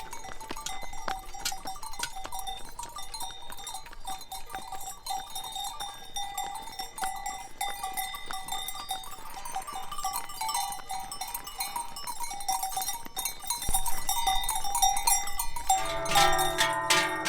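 Many cowbells clanging and ringing together as the herd moves, a constant jangle of overlapping strokes. Plucked zither-like music comes in near the end.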